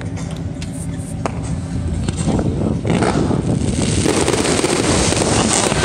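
Aerial fireworks going off: scattered sharp bangs at first, then a denser, louder run of bursts and crackle from about two to three seconds in.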